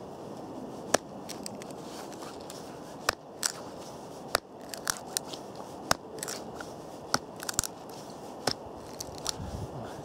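A knife tip gouging and prying into a frozen, hard wooden board: a series of sharp, irregularly spaced cracks and crunches as the blade bites in and chips break away.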